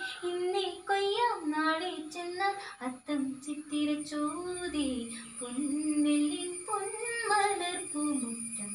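A girl singing a Malayalam Onam song (Onappattu), drawing out long held notes that bend up and down in pitch.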